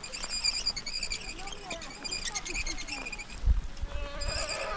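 Rapid, rhythmic high-pitched chirping that pauses for about a second and then resumes, with a single low thud about three and a half seconds in.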